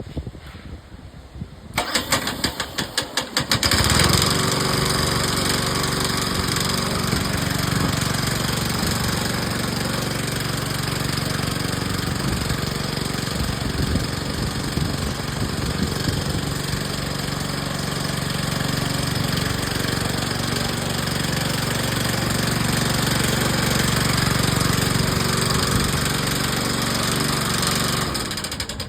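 Lawn mower engine starting: about two seconds of rapid cranking pulses, then it catches and runs steadily, winding down near the end.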